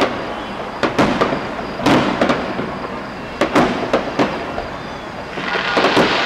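Aerial fireworks going off: a series of sharp bangs about every half second to second, over a continuous crackle, with a dense crackling burst swelling near the end.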